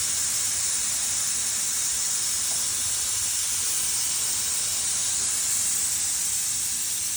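Steady, unchanging hiss, strongest in the high range, with a faint low hum beneath it.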